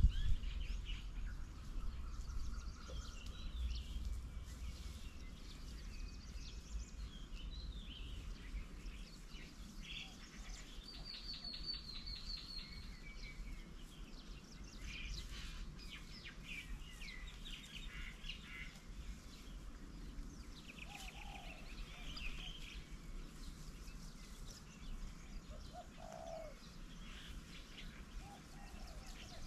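Several birds calling and chirping at once: overlapping short chirps, trills and rapid rattling notes, with a few lower, short calls in the second half, over a steady low rumble.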